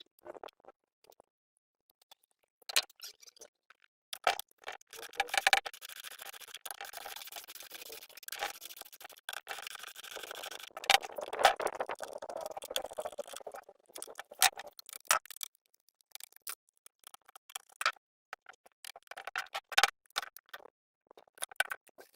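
Hand tools and metal parts being handled during generator repair work: scattered clicks and knocks, with a longer stretch of scraping and rattling in the middle.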